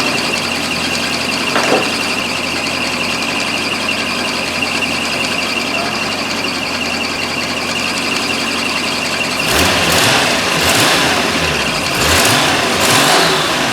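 Toyota 4M-E inline-six of a warmed-up 1979 Celica Supra idling steadily with a constant high-pitched whine over it. From about two-thirds of the way in it is revved in about four quick blips, each rising and falling in pitch, while its ignition timing is being set.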